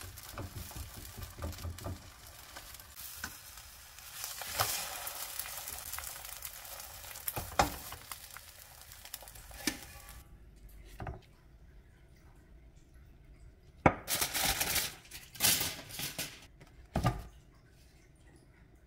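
Eggs frying in a nonstick pan: a steady sizzle, with a spatula scraping and tapping the pan now and then. The sizzle cuts off abruptly about ten seconds in, and a few short handling noises follow near the end.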